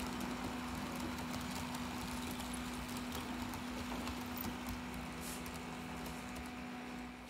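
H0 scale model trains running on the layout: a steady electric motor hum with light, irregular clicking of wheels over track joints and points, getting slightly quieter near the end.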